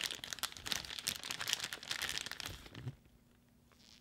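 Plastic bag crinkling and crackling as a hand rummages inside it for a soft plastic bait; the crackling stops a little before three seconds in.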